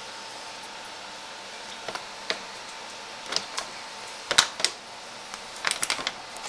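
Metal spoon clicking and tapping against a plastic measuring cup while pancake mix is spooned into it. The light clicks are scattered, with the loudest pair about two-thirds through and a quick cluster of taps near the end.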